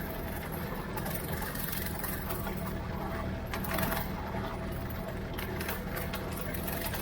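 Ford 3600 tractor's three-cylinder engine running steadily under load while pulling a rotary brush mower, with a continuous rattle and clicking over the engine hum. A brief louder rush of noise comes about three and a half seconds in.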